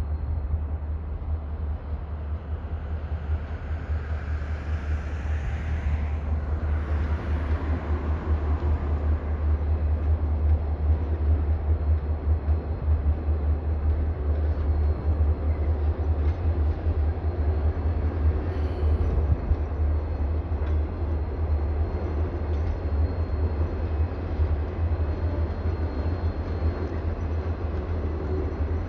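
A train running past with a continuous steady rumble. A brief swelling sweep comes a few seconds in.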